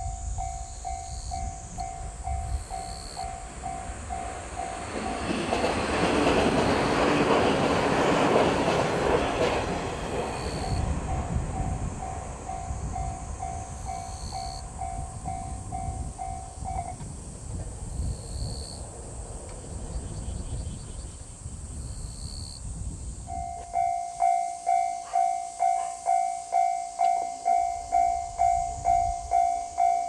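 Japanese railway crossing warning bell ringing in steady, evenly spaced strikes while a train rushes past, loudest about five to ten seconds in. The bell stops at about seventeen seconds, with a low rumble continuing, and starts ringing again, louder, at about twenty-three seconds as the crossing warns again and the barrier arm moves.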